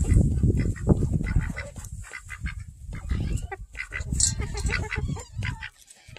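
Domestic ducks and chickens feeding up close: a string of short, honking duck quacks mixed with hens clucking. The calls are busiest at the start and thin out toward the end.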